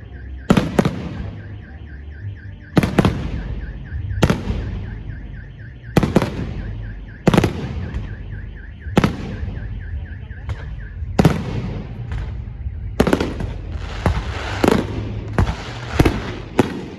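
Aerial firework shells bursting with sharp bangs every second or two, coming faster near the end. A car alarm warbles in the background through much of it.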